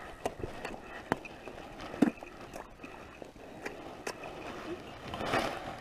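Boots crunching and scuffing on snow-covered lake ice as someone walks, with scattered small ticks and knocks, a sharper knock about two seconds in, and a longer scraping crunch about five seconds in.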